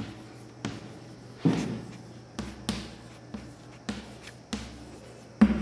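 Chalk writing on a blackboard: a string of irregular taps and short scrapes as figures and letters are written, the loudest knock near the end.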